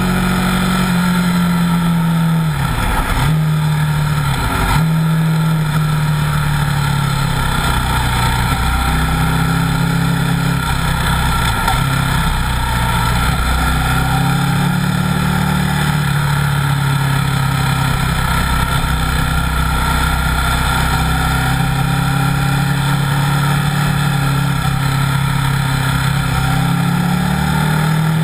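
Buell 1125R's 1125 cc V-twin engine pulling hard at track speed. Its pitch holds mostly steady, with two quick dips a few seconds in, over a steady rush of wind on the exposed camera microphone.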